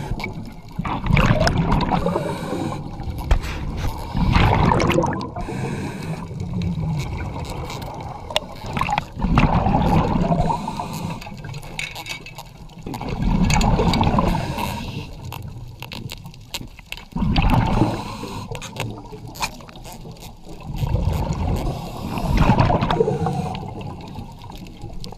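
Seawater washing and gurgling in surges that swell and fade every few seconds, with small scrapes and clicks between them.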